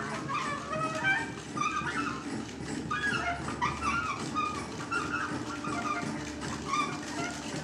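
Free-improvised avant-garde music for soprano saxophone, bass clarinet, percussion and electronics: short, squeaky high notes that bend and break off like a dog whimpering, with a low note held from about halfway in.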